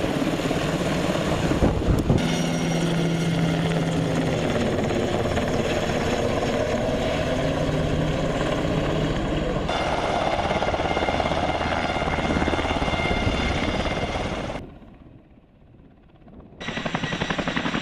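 UH-60 Black Hawk helicopter flying with an underslung load, its rotor and engine noise steady. The sound changes abruptly about 2 s and 10 s in, and near the end it drops almost to silence for about two seconds before coming back.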